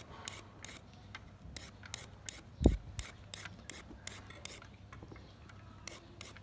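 Y-shaped vegetable peeler shaving thin strips off a raw carrot: a run of short scraping strokes, about two or three a second, with one dull thump a little under three seconds in.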